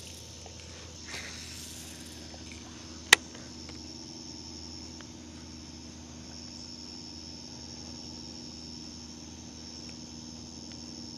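Insects chirring steadily at a high pitch, with a soft swish about a second in and one sharp click about three seconds in.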